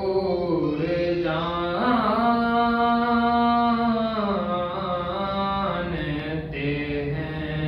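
Young man singing a noha (lamentation) solo and unaccompanied, holding long notes with slow ornamented turns. A long, higher held note begins about two seconds in and falls away around four seconds.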